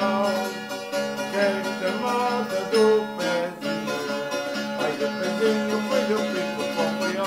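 Background music of plucked string instruments picking a melody over a steady held low note.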